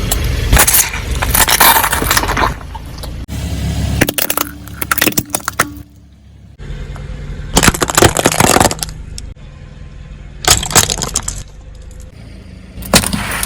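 Car tyres rolling over soft-drink containers, crushing them with loud crunching and cracking in about five separate bursts over the car's low engine hum.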